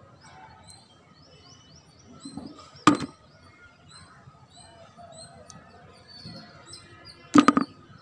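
Small birds chirping all through, with a sharp clack of hard plastic about three seconds in and a quick rattle of three or four clacks near the end, as plastic toy animals are knocked together and dropped into a plastic bucket on concrete.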